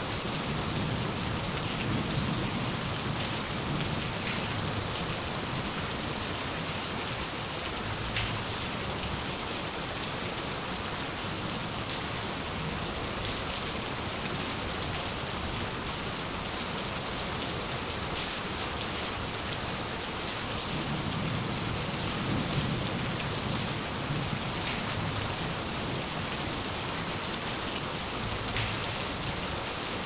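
Rain falling steadily, with low rumbles of thunder near the start and again about two-thirds of the way through.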